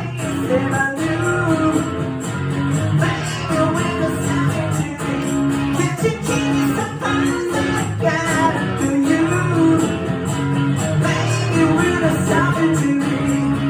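Live music: a guitar strummed in a steady rhythm, with a male voice singing over it.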